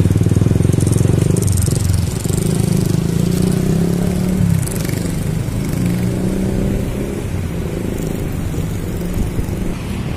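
An engine running nearby with a steady, low pulsing note, loudest in the first second or so, then steady and a little quieter.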